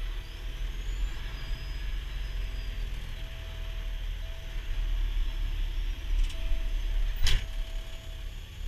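Heavy-duty wrecker's engine running with a steady low rumble, heard from inside the cab. A faint steady tone comes and goes over it, and a single sharp click sounds about seven seconds in.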